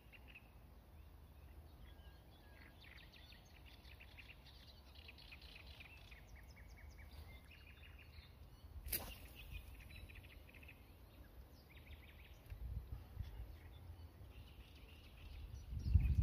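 Small birds chirping and trilling in quick repeated notes, with a single sharp click about nine seconds in. Low wind rumble on the microphone swells briefly past the middle and turns loud near the end.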